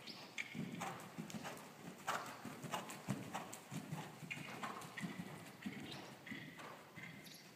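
Horse's hooves on the soft sand footing of an indoor riding arena at a canter: muffled, rhythmic hoofbeats.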